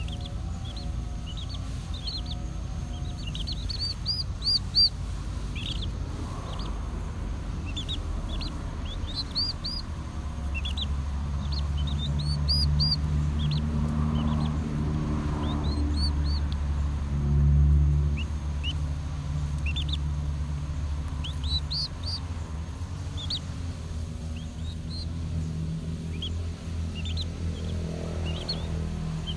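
Chicken chicks peeping over and over, short high chirps that drop in pitch, while they peck at rice held out by hand. A steady low hum sits underneath for much of the time.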